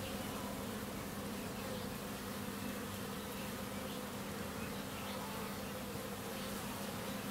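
Honey bees flying around their hive entrances, a steady, even hum.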